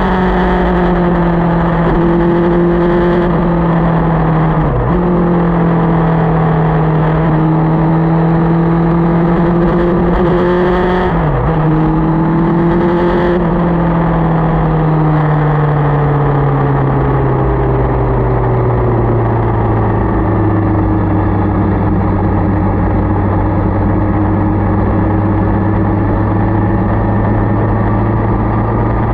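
Motorcycle engine running while riding. Its note holds steady with two brief sharp dips in pitch in the first half, then falls gradually over several seconds and settles at a lower, steady pitch.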